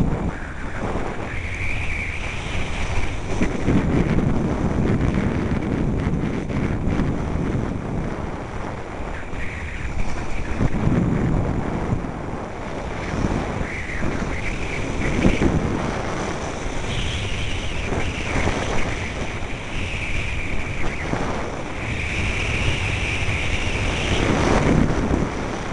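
Wind rushing and buffeting over the camera microphone of a skier descending a piste, with the hiss of skis on snow swelling and easing through the turns.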